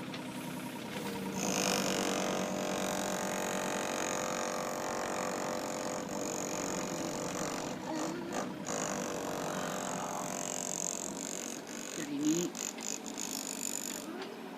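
Diesel engine of heavy construction machinery running, its pitch sagging and rising slowly as the load changes.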